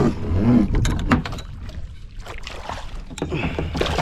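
Scattered sharp knocks and clicks over a steady low rumble: handling noise from an angler fighting a hooked smallmouth bass from a small boat.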